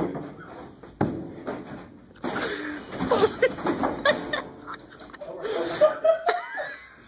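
People laughing and chuckling, with a few sharp knocks in the first couple of seconds.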